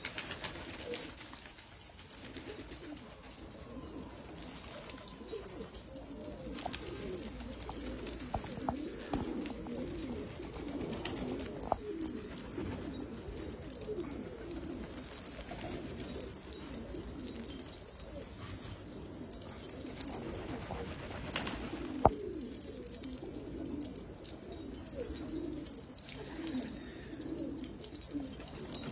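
Domestic pigeons cooing continuously over a steady high hiss, with a few brief sharp clicks, the loudest about 22 seconds in.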